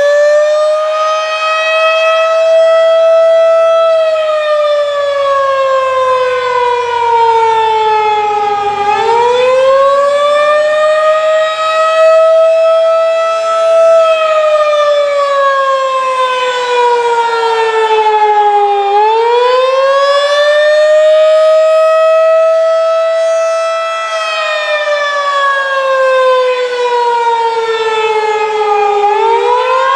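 Federal Signal 2001-DC outdoor warning siren sounding the attack signal. It is a wail that climbs over about four seconds to its top pitch, then slides slowly down over about five seconds and climbs again, in cycles of about ten seconds.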